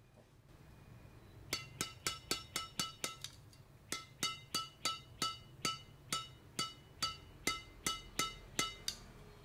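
The string bed of a freshly strung badminton racket, Mizuno MZ63 strings at 10.5 kg, struck over and over to test its sound: sharp, ringing pings that start about a second and a half in, a quick run of seven, a short pause, then steady strikes about three a second. The thin MZ63 string gives a very crisp, bright ping.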